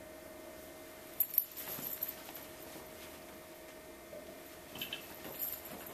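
A person handling things at a desk: a couple of sharp clicks about a second in and light rattles near the end, over a steady faint hum.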